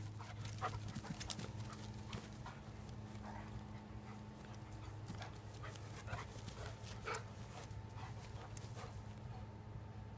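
Akita romping on a lawn: irregular soft thuds and scuffs of its paws on the grass, with the dog's breathing, over a faint steady hum.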